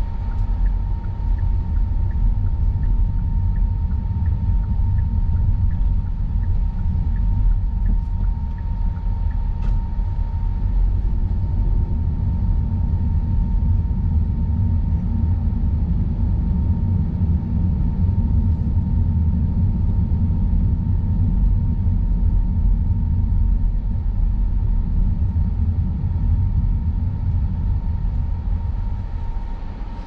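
Car driving: steady low road and engine rumble with a faint constant whine. About two faint ticks a second run through the first ten seconds or so.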